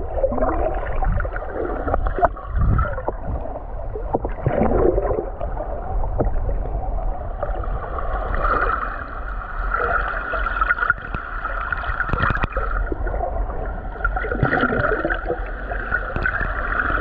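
Muffled underwater noise picked up by a submerged camera: water gurgling and sloshing, with scattered clicks. A steady whine comes in about halfway through.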